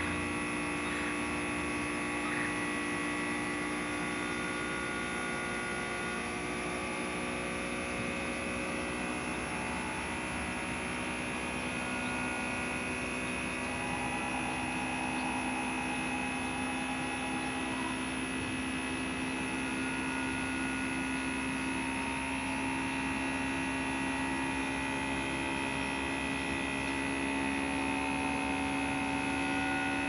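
Bryant Evolution heat pump outdoor unit running steadily, a constant hum of several steady tones from its compressor and fan while it is being charged with R-410A refrigerant.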